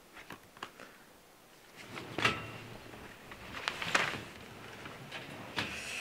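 Rustling and handling noises with several light knocks, as of a bedside drawer or cupboard being opened and shut and a small wrapped gift taken out.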